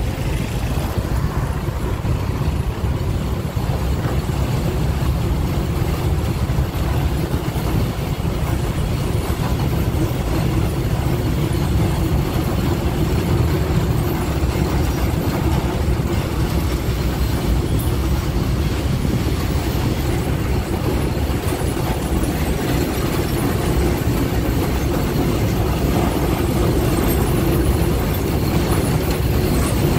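D12E diesel locomotive running as it hauls a freight train toward the listener: a steady low rumble of engine and rolling train that grows slightly louder near the end as it draws close.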